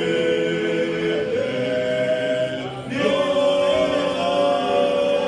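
Church congregation or choir singing a worship song together in long held notes, shifting to new chords about a second and three seconds in.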